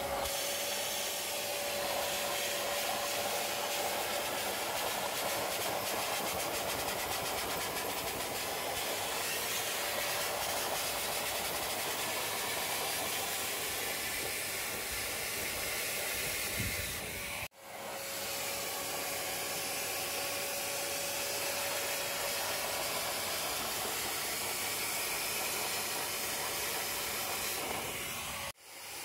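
Wet vacuum cleaner running, its wide clear plastic carpet nozzle sucking dirty water out of a soaked carpet: a steady rushing hiss over a faint motor whine. The sound drops out abruptly for a moment twice, once past halfway and again just before the end.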